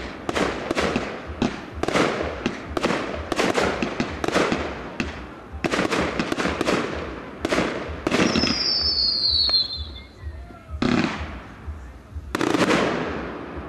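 Fireworks display: aerial shells bang in quick succession, about two a second, each with an echoing tail. About eight seconds in, a high whistle falls in pitch, and two more bangs follow near the end.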